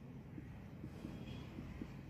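Faint scratching of a marker pen writing on a whiteboard, a few short strokes at irregular moments over a low room hum.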